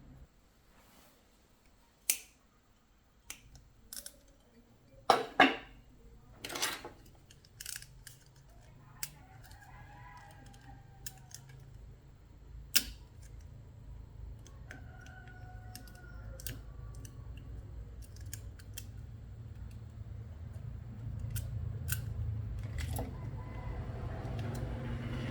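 Scattered sharp clicks and taps of tools and small parts being handled during repair work, the loudest a pair about five seconds in, with a low hum building towards the end.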